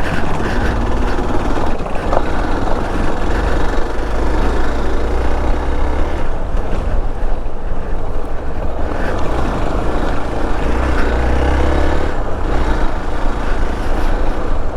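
Motorcycle running steadily over a rough off-road dirt track, with heavy low rumble of wind on the microphone.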